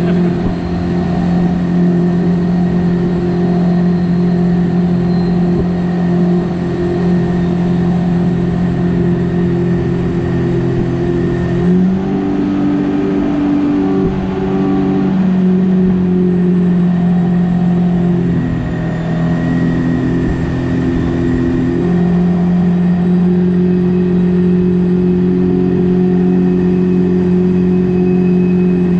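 Jet boat's engine running steadily under way. Its pitch steps up about twelve seconds in, drops around eighteen seconds and rises again around twenty-two seconds as the throttle changes.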